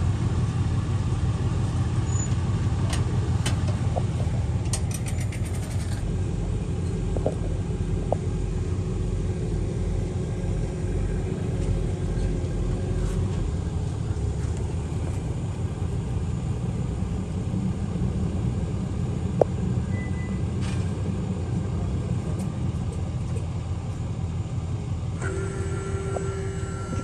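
Idling engines with a steady low rumble: the boat's quad outboard motors running at low throttle to nudge it up onto the trailer, with the tow truck idling. There are a few light clicks early on and one sharp click about two-thirds of the way through.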